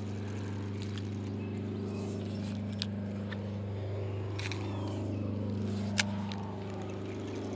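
Steady low engine hum with an even pitch, with a few short sharp clicks about three, four and a half and six seconds in.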